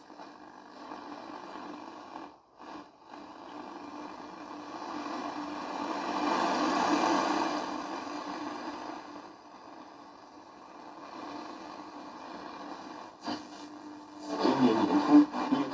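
Radio receiver's loudspeaker giving out static hiss while the RF amplifier's gain control is turned; the noise swells about six seconds in and then eases off. Near the end a weak station's voice breaks through the static.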